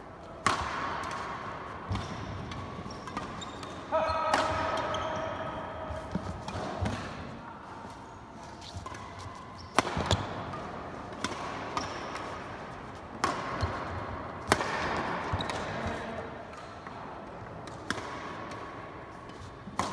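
Badminton rally: rackets hitting the shuttlecock, a sharp crack every second or two, with the players' shoes on the court between strikes, echoing in a large hall.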